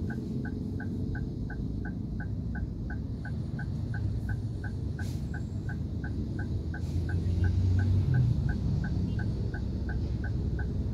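Turn-signal indicator of a 2022 Toyota Avanza ticking steadily in the cabin, about three clicks a second, over a low engine and traffic rumble that grows louder about eight seconds in.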